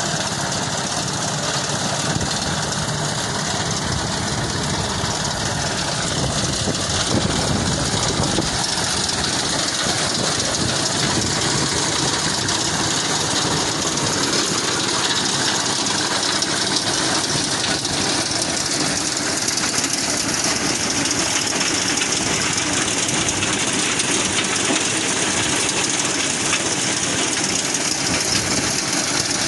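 An engine running steadily and loudly throughout.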